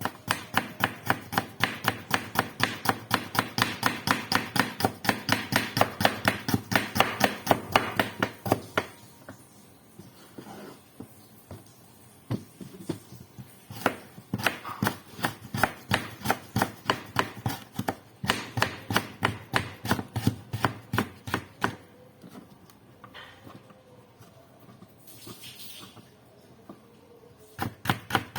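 Kitchen knife chopping quickly on a cutting board in rapid, even strokes, about four or five a second, stopping for a few seconds twice and then starting again.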